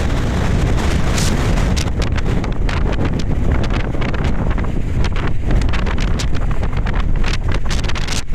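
Strong gusting wind blasting the microphone, with the fabric of a Forclaz Trek 100 tent flapping and cracking rapidly in it as the tent is wrecked by the gale.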